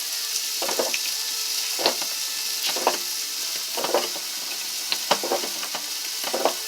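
Old-fashioned hand-cranked meat grinder being turned as it grinds beef, with a short noisy stroke about once a second over a steady hiss.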